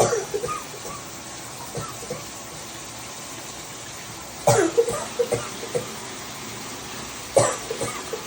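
A woman coughing in three fits: at the start, about four and a half seconds in, and near the end. Each fit is a sharp hard cough followed by several smaller coughs.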